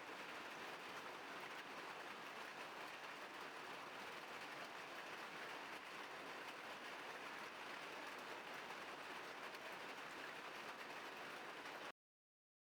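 Steady rain falling, an even hiss with no distinct drops, cutting off suddenly near the end.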